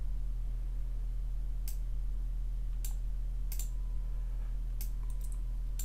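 Computer mouse clicks, about half a dozen short sharp clicks a second or so apart, over a steady low electrical hum.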